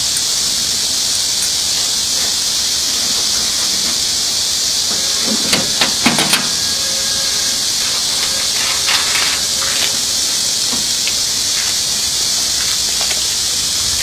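Steady high-pitched hiss, with a few faint short clicks and knocks about halfway through.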